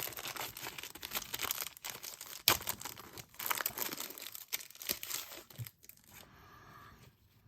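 Paper wrapper of a baseball card pack being torn open and crinkled, with irregular crackles and sharp snaps that die away near the end.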